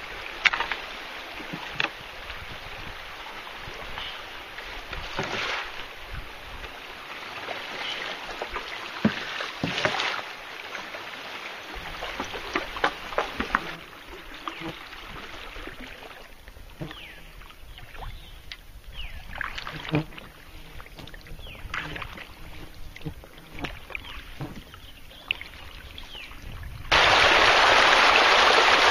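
A river swift rushing steadily, with scattered knocks and splashes as a canoe is poled upstream through it. Near the end a much louder, steady rush of shallow water over rocks suddenly takes over.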